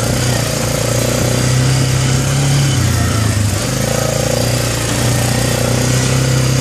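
Arctic Cat 400 4x4 ATV's single-cylinder four-stroke engine running steadily under load as the quad crawls along in low range, with a brief change in the engine note about three seconds in.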